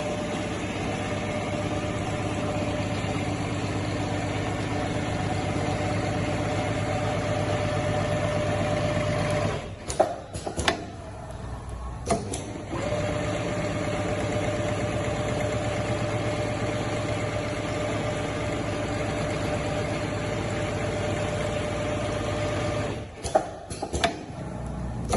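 Richpeace automatic sewing machine running steadily as it sews zigzag stitch, with a steady hum and a held tone. It stops about ten seconds in with a few sharp clicks, starts again about two seconds later, and stops again near the end with more clicks.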